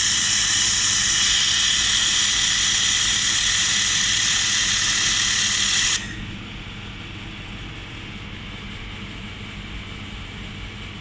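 Handheld fiber laser welder working on aluminum sheet: a loud steady hiss of gas flowing from the welding head that cuts off suddenly about six seconds in. A quieter steady hum from the machine runs underneath and carries on after the hiss stops.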